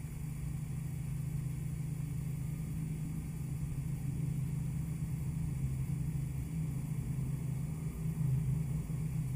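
A low, steady rumble that grows slightly louder toward the end.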